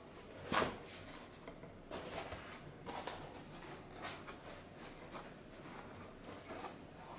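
A plastic car head unit handled and set against foam packing: a sharp knock about half a second in, then several soft scuffs and rustles as it is shifted.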